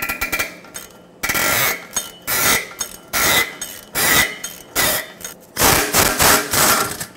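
Hammer blows on a steel socket being driven onto a rust-shrunk exhaust-manifold nut: a string of sharp metallic strikes, each with a ring, about one a second and coming quicker near the end.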